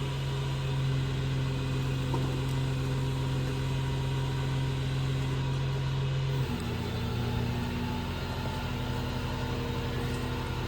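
Engine idling steadily, its speed dropping slightly about six and a half seconds in.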